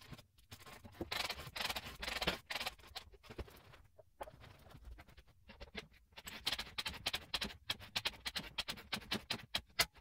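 Fast-forwarded work sounds from winding a Torquemaster garage door torsion spring: dense runs of quick, chattering clicks and knocks, busiest in the second half.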